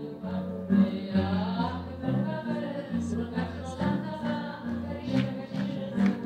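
A woman singing live with an acoustic accompaniment of grand piano and double bass.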